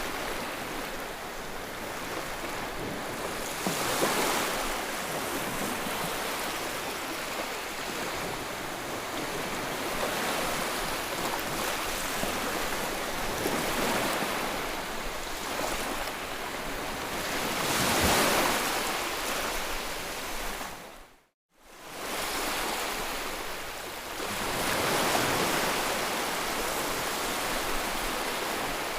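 White-noise track for soothing a colicky baby: a steady rushing hiss that swells and fades every few seconds like surf. It cuts out for a moment about 21 seconds in, then returns.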